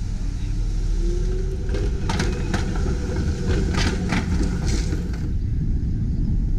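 TTC CLRV streetcar passing at close range: a low rumble with a faint whine rising in pitch, then a run of sharp clacks as the car goes by.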